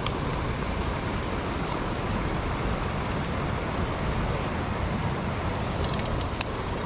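Steady rush of river water running over rocks, with a few light clicks about six seconds in.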